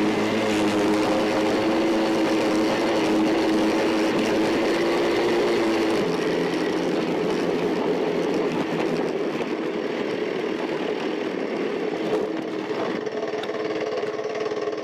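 Small engine running steadily, a dirt bike's at the start, with its note changing about six seconds in.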